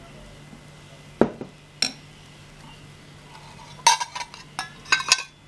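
Metal kitchen utensils clinking against each other: two single knocks, then a quick run of ringing clinks about four seconds in. A faint low hum runs beneath.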